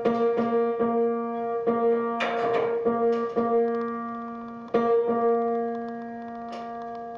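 A single grand piano note, B3, struck over and over, about nine times and sometimes in quick pairs, each strike left ringing as the piano is tuned with a tuning lever on the pin. A brief scraping noise comes about two seconds in.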